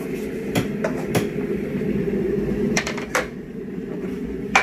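Ceramic mugs and a spoon clinking and knocking on a counter, about six sharp clicks spread out, the last the loudest, over a steady low hum.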